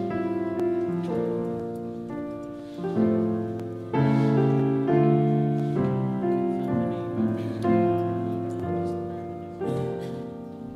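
Slow, gentle piano music: chords struck every second or two and left to ring and fade.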